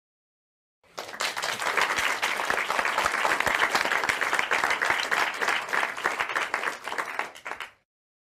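Applause: many hands clapping, starting about a second in and dying away shortly before the end.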